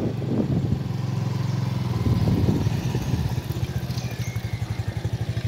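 A small engine running steadily at low revs, putting at about ten beats a second.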